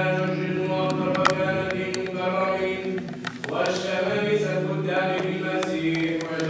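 Byzantine-rite liturgical chant: a sung melody over a steady held low note, with a short break about halfway before the singing resumes.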